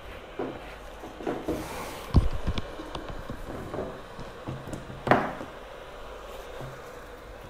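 Tools and small parts handled on a workbench: a string of light knocks and rubs, with the sharpest knocks about two seconds in and again about five seconds in, over a steady low hiss.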